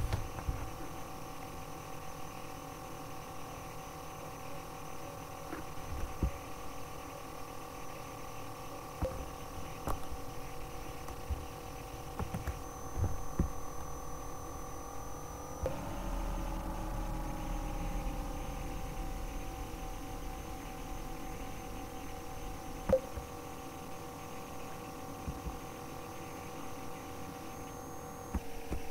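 Computer cooling fan humming steadily as the machine compiles under heavy CPU load, with a few faint clicks. About halfway through its several steady tones slide down in pitch together and then hold.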